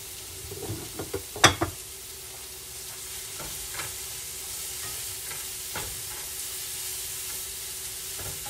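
Sliced onions, peppers and mushrooms sizzling in a frying pan, a steady hiss, with a few sharp knocks in the first two seconds and lighter taps later as a silicone whisk stirs the vegetables.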